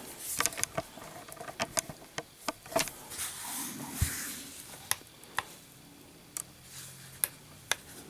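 Light clicks and taps of gloved hands handling a stainless-steel digital kitchen scale, setting it down and pressing its power button, with a dull thump about four seconds in.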